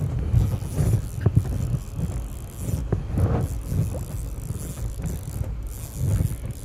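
Spinning reel being cranked, its mechanism clicking, over a steady low rumble of wind on the microphone.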